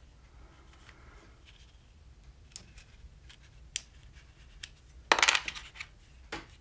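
A few sharp, small clicks of hard parts being handled, with the loudest clatter about five seconds in: the DJI Osmo Pocket's small smartphone connector being plugged in and handled.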